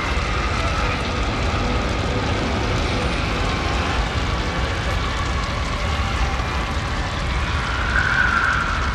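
Steady, dense horror sound-effects ambience: a constant low rumble under a noisy bed with faint wavering tones. Near the end a higher wailing tone swells briefly.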